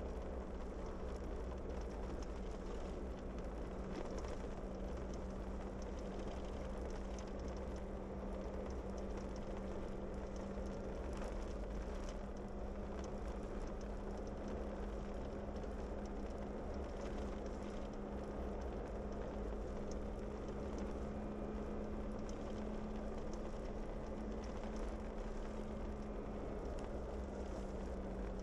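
A vehicle cruising steadily on an unpaved road: a constant low engine drone under a continuous wash of tyre and road noise, with faint scattered ticks.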